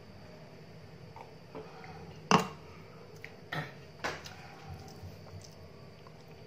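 A plastic cup of juice set down on a stone countertop with one sharp knock about two seconds in, followed by two lighter knocks and a few faint clinks of a spoon and plate, over a faint steady hum.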